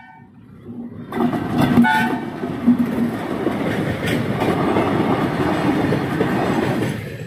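WDG3A diesel locomotive (ALCO engine) and its train passing close by: engine rumble and wheels clattering over the rails, with a brief horn note about two seconds in. The noise builds about a second in and falls away near the end.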